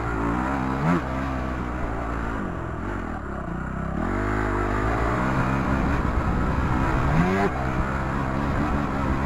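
Dirt bike engine running under changing throttle on a trail ride, its note climbing and dropping, with quick revs up about a second in and again near the end.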